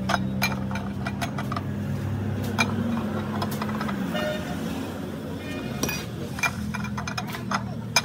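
A machine's motor hums steadily, dropping a little in pitch about four seconds in, while metal parts clink and knock.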